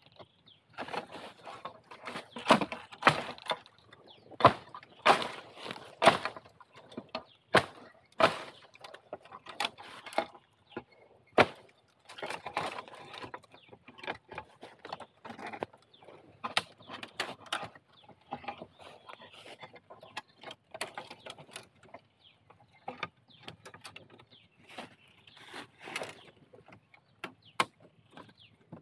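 A digging spade chopping and prying at the base of a wild bamboo shoot in a bamboo clump: irregular sharp knocks and scrapes, loudest and most frequent in the first dozen seconds.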